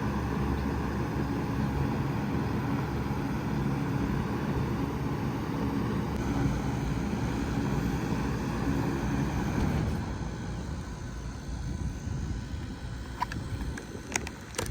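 2019 Bard 5-ton wall-hung heat pump running in cooling mode with a steady hum, which cuts off about two-thirds of the way through as the unit shuts down. A quieter airflow sound fades on after it, with a few light ticks near the end.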